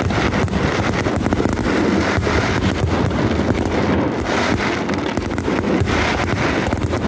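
A dense fireworks barrage, with many shells bursting at once: a continuous rumble of booms overlaid with rapid crackling.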